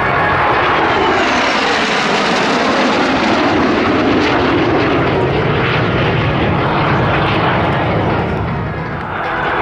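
Loud, steady engine noise of a military display aircraft in flight, its pitch dropping over the first few seconds as it passes.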